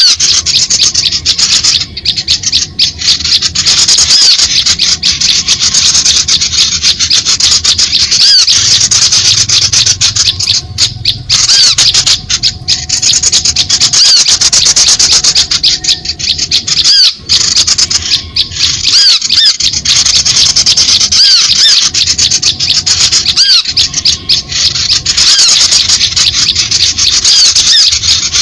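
Bird-lure recording of many small songbirds calling at once: a loud, dense wash of high chirps and twitters, broken by short gaps every few seconds.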